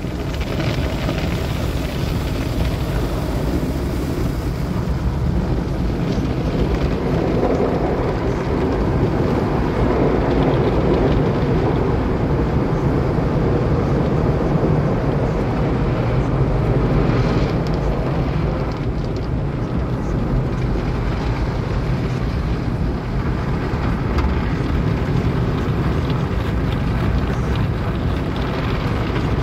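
Automatic tunnel car wash spraying water and soap over the car, heard from inside the cabin as a loud, steady rushing noise that swells about seven seconds in.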